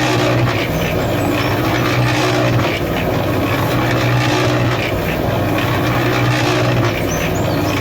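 Small electric motor of a DIY miniature tractor running steadily, a continuous even hum.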